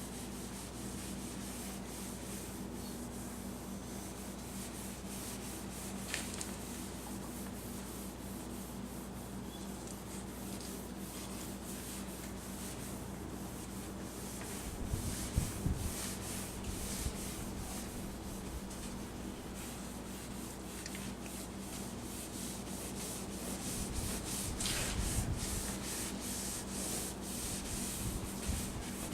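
Paper towel rubbing lens clarifying compound over a yellowed, oxidised plastic headlight lens: a steady scrubbing, with a few low bumps about halfway through and again near the end.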